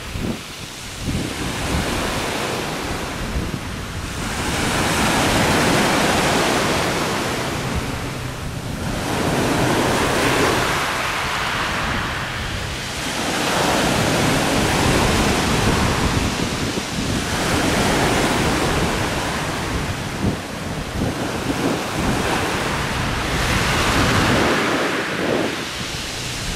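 Sea waves breaking and washing in, swelling and falling back every four or five seconds, with wind rumbling on the microphone.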